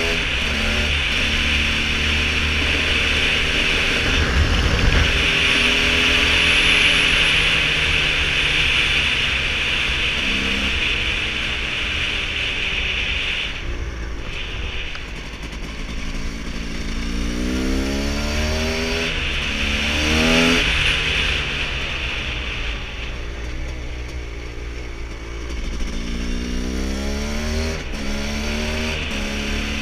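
2001 Kawasaki KX250's single-cylinder two-stroke engine under way. It revs up and drops back again and again as the rider works the throttle and runs up through the gears, with the biggest climbs about two-thirds of the way in and near the end.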